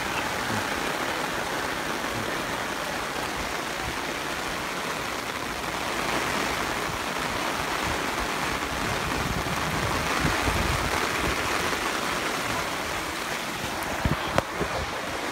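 Steady rain falling, a constant hiss with no let-up. A few sharp knocks come near the end.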